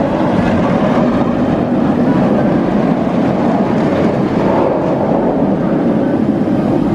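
Steel inverted roller coaster train running on its track, a loud steady rumble.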